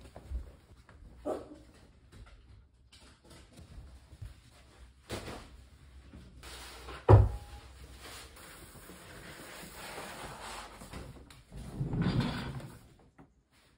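A roll of paper being handled and unrolled across a wooden tabletop. A sharp knock about seven seconds in is the loudest sound, followed by several seconds of steady paper rustling and sliding, and another burst of paper handling near the end.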